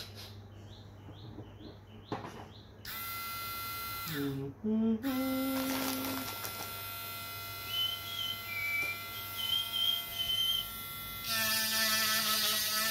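A 12 V mini rotary engraving and grinding tool, rated 14,000 rpm, is switched on about three seconds in and runs with a steady high motor whine. Its pitch shifts briefly around four seconds. Near the end it gets louder and rougher as the spinning bit is put against a part to grind.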